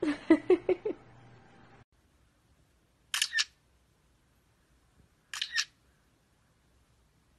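A parrot gives a quick run of about five short calls. After a cut, a budgerigar chirps twice, each a short high chirp about two seconds apart.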